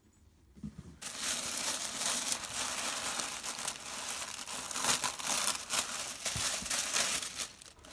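Tissue paper crinkling and rustling as hands unfold the wrapping inside a gift box. It starts abruptly about a second in and carries on in an uneven, crackly stream.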